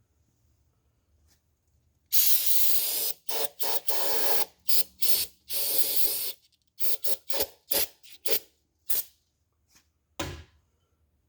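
A spray nozzle hissing in blasts: a long one about two seconds in, then a run of short bursts, clearing out a freshly tapped bolt hole in a cast iron engine block. A dull knock near the end.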